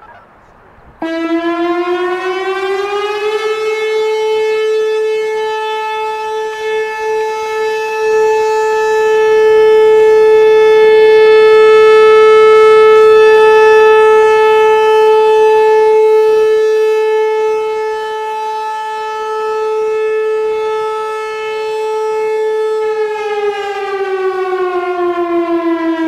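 Whelen WPS-4004 electronic outdoor warning siren sounding its steady Alert tone. It starts about a second in and glides up to one held pitch. It swells louder and softer as the rotating speaker head sweeps around, and near the end it starts gliding back down.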